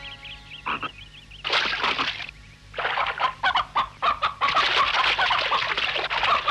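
Chickens squawking and clucking in a flurry: a few short bursts at first, then a dense run of squawks from about three seconds in.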